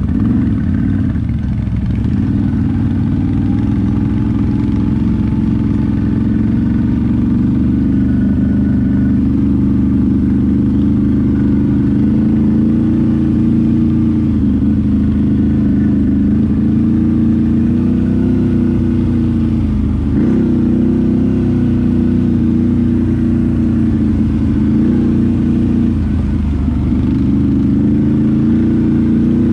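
ATV engine running steadily under way, its pitch drifting gently up and down with the throttle, with two brief drops in revs, about two-thirds of the way through and again near the end.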